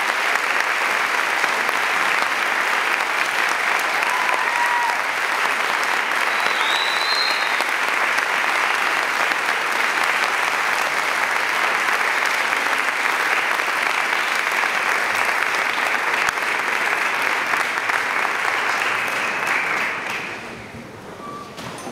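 Audience applauding steadily, then dying away about twenty seconds in.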